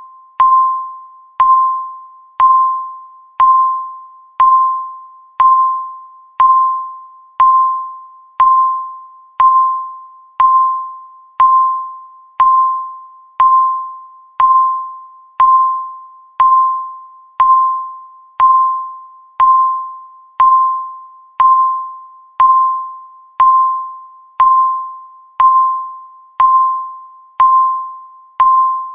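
Countdown timer's ticking sound effect: a short pitched ding, struck once a second and fading quickly after each strike, in an even, steady rhythm.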